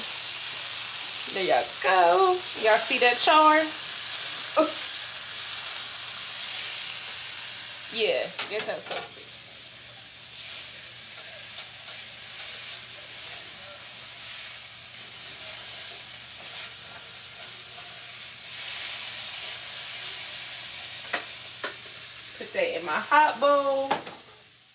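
Food frying in a pan: a steady sizzle, with short louder stirring sounds near the start, about eight seconds in, and near the end.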